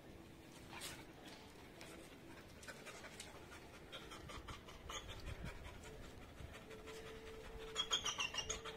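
A dog panting in quick rhythmic breaths, faint at first and louder near the end.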